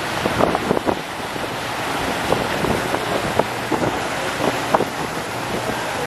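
Wind buffeting the microphone over the steady rush of a moving boat's churning wake, with short sharp splashes or gusts scattered through it.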